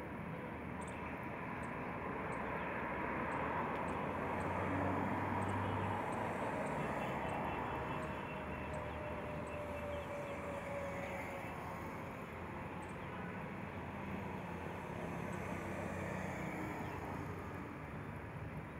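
Steady rumble of distant road traffic, swelling a few seconds in and easing off again, with a faint falling tone partway through.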